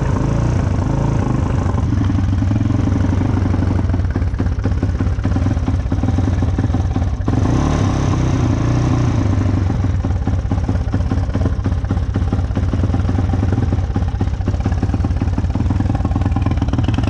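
Yamaha Raptor 660 quad's single-cylinder four-stroke engine running steadily, its pitch shifting slightly a few times.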